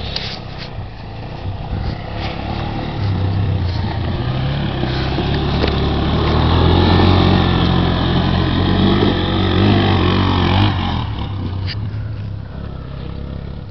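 Kawasaki KLF220 quad bike's single-cylinder four-stroke engine running under way, its note rising in pitch and growing louder through the middle, then fading toward the end.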